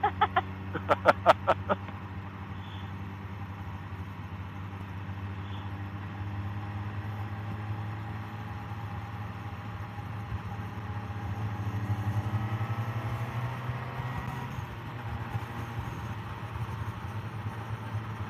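Motorcycle engine running steadily under way; about eleven seconds in it grows louder and rises in pitch as the bike accelerates, then settles back.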